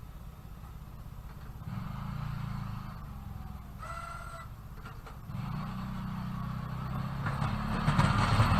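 Engine of a snowplowing vehicle running, louder in steps and building toward the end as it works. About four seconds in, a short, clear high tone sounds for under a second.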